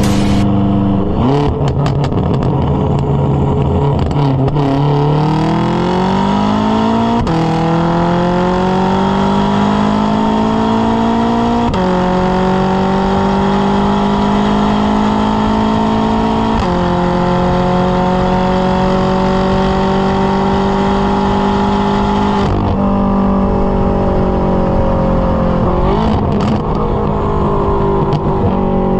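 Straight-piped, catless BMW F10 M5 twin-turbo V8 exhaust under hard acceleration, its pitch climbing and then dropping sharply at each of three upshifts. After the last upshift it holds steady, then falls away as the throttle eases near the end.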